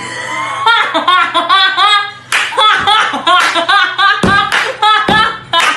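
Music: a song with singing over a beat of sharp claps.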